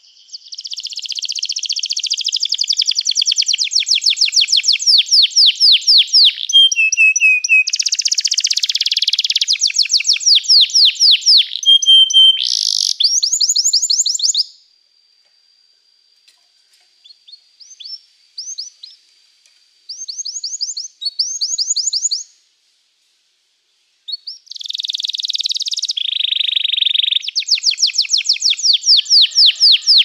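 Domestic canary singing: long high-pitched phrases of fast rolling trills. About halfway it breaks off into a few short notes and a short silence, then starts singing again near the end.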